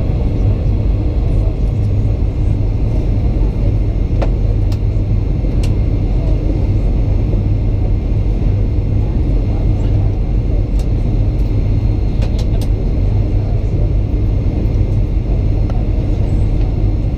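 Steady low rumble of a Boeing 737-900 in flight, heard from inside the passenger cabin: airflow and engine noise on the approach, with a few faint clicks.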